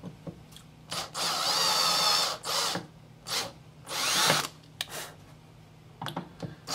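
Power drill driving small brass screws into a hinge, run in short trigger bursts with one longer run of about a second; the motor whine rises briefly in one burst near the middle.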